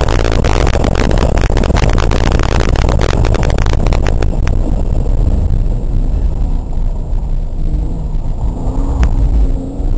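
Car engine, tyre and road noise heard from inside the cabin of a car driven hard on a coned course. It is loud and rattly for the first four seconds or so, then drops to a lower rumble, and near the end the engine's pitch rises as the car accelerates.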